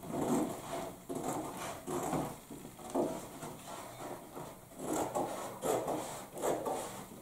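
Long-bladed wallpapering scissors cutting upward through pasted wallpaper in a series of rasping snips, about one a second.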